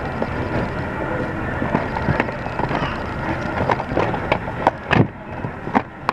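Plastic Blu-ray and DVD cases clacking and knocking together as they are flipped through by hand in a bin, over a steady background hum. The clicks come faster and louder in the second half.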